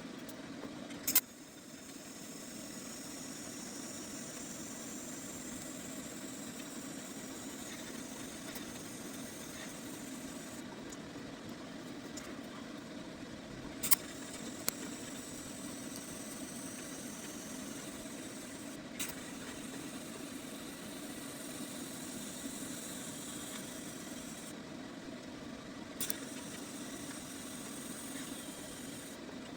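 TIG welder running as braces are welded onto a steel bracket with filler rod: a steady buzzing hum, broken by a few sharp clicks about a second in, near the middle and near the end.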